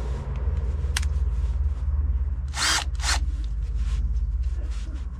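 Power drill running as it drills out the rivets that hold a car speaker to its mounting panel. A steady low hum, with a click about a second in and two short hissing bursts near the middle.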